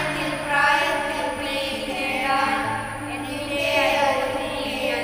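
A small group of children singing a hymn together, with long held notes over a steady low accompaniment note that shifts down in pitch about halfway through.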